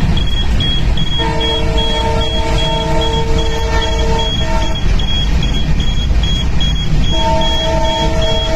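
A multi-tone train horn sounds for about three and a half seconds, then again near the end, over a steady low rumble. A high beep repeats a few times a second throughout.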